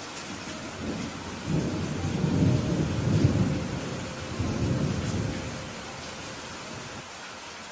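Steady rain falling, with a roll of thunder that builds about a second in, rumbles low for several seconds with a second swell, and dies away before the end.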